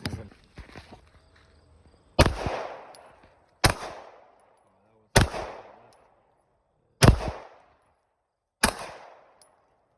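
Handgun fired five times in slow, evenly paced single shots about a second and a half apart, each sharp crack trailing off in a short ringing echo.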